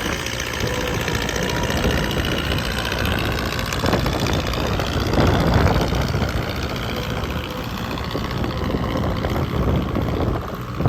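Hydra-Mac skid steer's engine running steadily at idle, swelling a little louder about halfway through.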